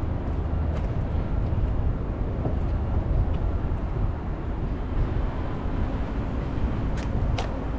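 Steady low outdoor rumble with no clear pitch, and a few faint clicks near the end.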